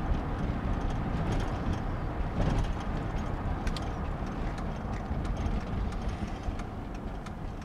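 Steady road and engine noise heard inside the cab of a tow vehicle moving at street speed with a travel trailer behind it: a low rumble with a few light clicks.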